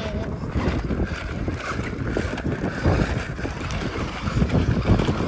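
Wind noise buffeting the microphone unevenly, with the small electric drive and tyres of an RC Ford F-150 Raptor toy truck crawling over loose gravel beneath it.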